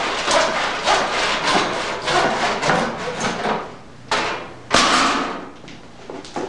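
Hammer blows on wood: a run of strikes in quick succession, then two sharper, louder strikes about four and five seconds in.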